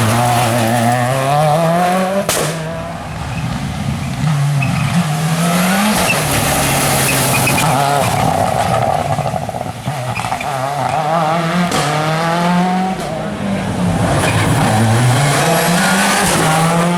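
Seat Córdoba WRC rally car's turbocharged four-cylinder engine under hard acceleration. Its note climbs steeply and drops back at each gear change, over and over, with a sharp crack about two seconds in and some tyre squeal.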